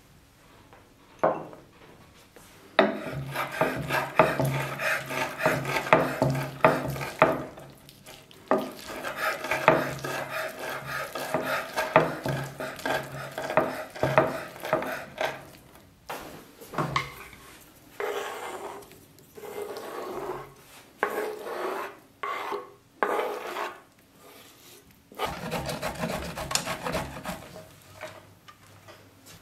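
A kitchen knife chopping soft sun-dried tomatoes on a wooden cutting board in long runs of rapid strokes. Near the end comes a stretch of rasping as parmesan is grated on a metal grater.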